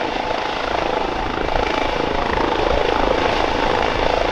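Eurocopter EC135 P2+ police helicopter hovering low, its twin Pratt & Whitney PW206B turboshaft engines and rotors running steadily with a fast, even blade beat.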